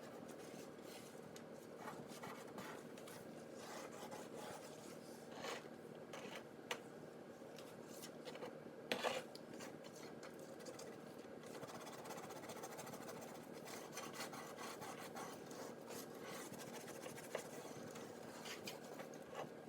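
Faint, steady scrubbing of a wet dishwasher tablet rubbed against oven-door glass, with a few light taps, the clearest about nine seconds in.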